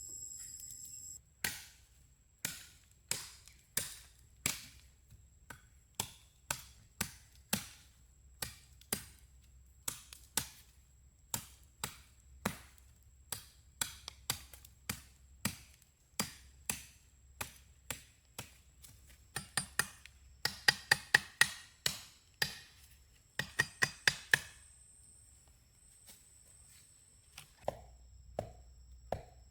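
A blade chopping in repeated sharp strikes, about one and a half a second, then two quick flurries of rapid chops past the middle, and a few softer, duller knocks near the end.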